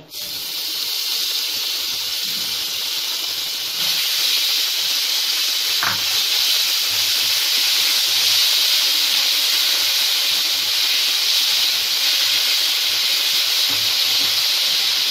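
Ginger-garlic paste sizzling in hot oil with cumin seeds and curry leaves in a nonstick pan: a steady high hiss that starts as the paste goes in and gets louder about four seconds in.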